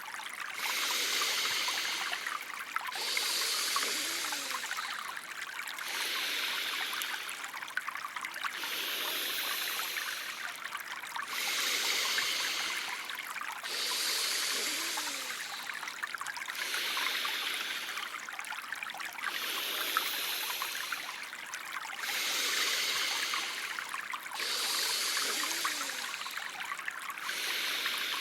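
Flowing-stream background with a breathing sound effect on top: slow, even hissing breaths in and out, one roughly every two and a half seconds.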